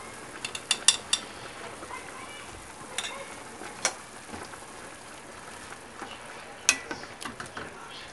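Chili powder tapped and scraped out of a small bowl into a stainless steel soup pot, with a cluster of quick clicks in the first second and a few more around three to four seconds in, then a wooden spoon knocking against the pot as stirring begins near the end. A steady hiss from the simmering soup runs underneath.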